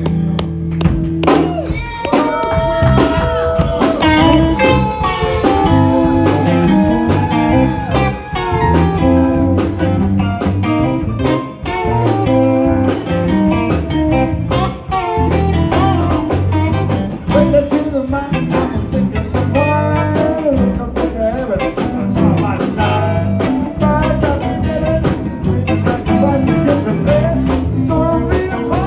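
Live band playing an instrumental passage: an electric guitar lead with bending notes over bass and drums.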